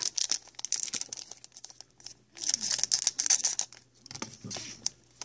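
Foil wrapper of a Pokémon trading-card booster pack crinkling as it is handled and opened by hand, in several bursts with sharp clicks.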